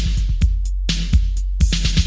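Electronic bass music for car audio systems: a drum-machine beat of sharp kick and snare-like hits over a long, deep sub-bass note.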